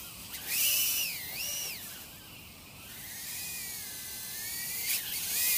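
Warlark Pro 85 micro brushless quadcopter's ducted-fan motors whining in flight, the pitch jumping up and down twice with the throttle in the first couple of seconds, then running steadier and fainter.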